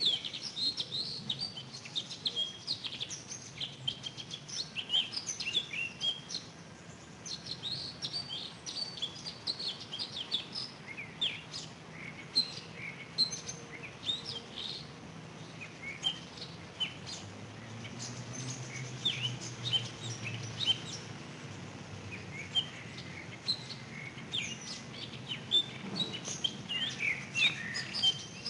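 Several songbirds singing at once: a busy chorus of short chirps and trills, thinning out in the middle. A faint low hum rises and fades in the background about two-thirds of the way through.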